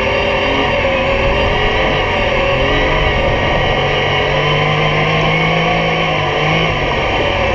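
Yamaha YXZ1000R side-by-side's three-cylinder engine running under load while driving over dirt. The revs rise over a few seconds and drop again near the end.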